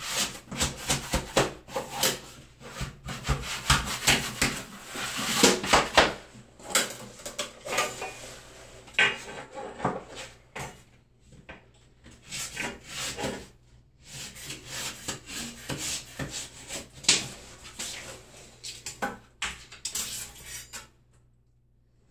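Wallpaper being worked by hand: quick, irregular rubbing and scraping strokes, densest over the first ten seconds, then coming in shorter runs with pauses, and dying away just before the end.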